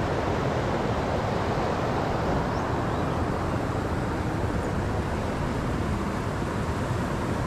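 Steady rush of a river flowing over rocks and a weir, an even unbroken noise.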